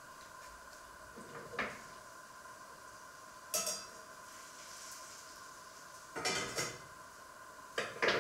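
Metal cooking utensils clattering against pots and pans in four short bursts, the last the loudest, over a faint steady hum.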